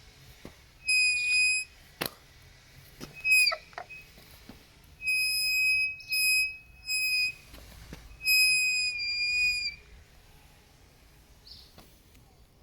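Front brake of a Kukirin G3 Pro electric scooter squealing: about six separate high-pitched squeals, each lasting half a second to a second and a half, one dropping in pitch as it ends. A sharp click comes about two seconds in.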